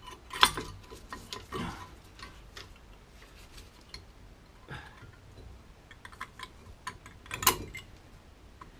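Metal clicks, taps and light knocks of a brake pad being worked into its caliper carrier and anti-rattle clips on a car's front brake, scattered and irregular, with louder knocks about half a second in and near the end.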